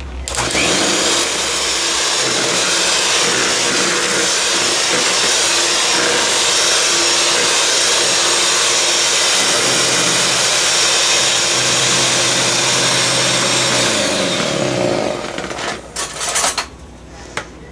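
Electric hand mixer running steadily at speed, its beaters whipping egg whites into meringue. The motor winds down near the end, followed by a few sharp knocks.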